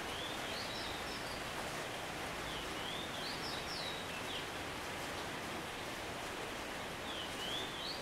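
Steady rain hiss. Over it a small bird sings a short, high phrase of rising and falling whistled notes, three times about four seconds apart.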